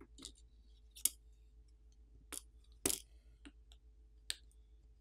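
Plastic pry pick popping press-fit flex-cable connectors off the Samsung Galaxy A42 5G's circuit boards: a handful of light, irregular clicks and taps, the sharpest about three seconds in.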